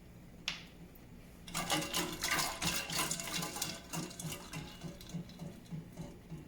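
Water running and splashing in a kitchen, starting with a rush about a second and a half in and tapering off toward the end, after a single click.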